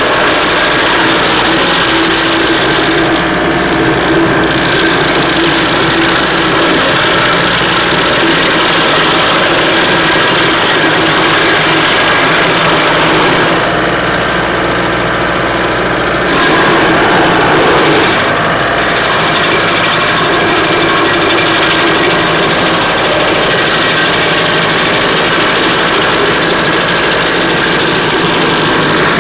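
Rayco RG1642 stump grinder running loud and steady. The sound shifts briefly a few times, and grows louder for a couple of seconds past the middle.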